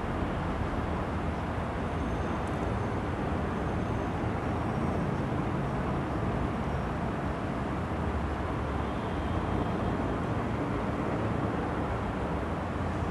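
Steady low rumbling background noise with hiss, with no distinct events.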